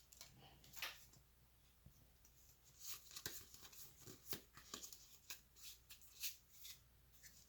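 Faint, scattered clicks and rustles of Pokémon trading cards being handled out of a just-opened booster pack, busiest in the second half.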